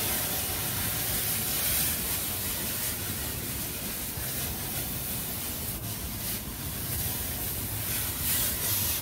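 Aerosol nonstick cooking spray hissing in a steady stream onto hot grill grates.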